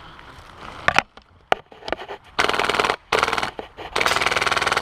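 Airsoft rifle firing: a couple of sharp single cracks, then three long bursts of rapid full-auto fire, the last and longest running on to the end.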